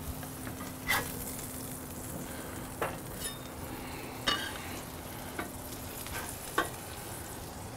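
Cheese-topped smashed burger patties sizzling steadily on a hot griddle. A handful of short, sharp taps and scrapes of a metal spatula on the cooking surface come through as the patties are stacked into doubles.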